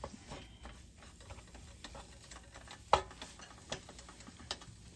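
Wooden spatula stirring and breaking up rice in a nonstick frying pan while stir-frying: soft scraping with irregular taps and knocks of the spatula on the pan, the loudest about three seconds in.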